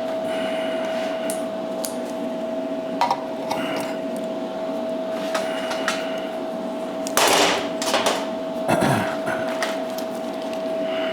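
Air tools knocking and clanking against a 14-gauge mild steel rack as they are hung in its slots: scattered metal knocks, the loudest a cluster about seven to nine seconds in, over a steady hum.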